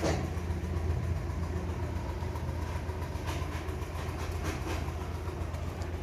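A steady low machine hum, like an engine running, with scattered knocks and scrapes of building work over it.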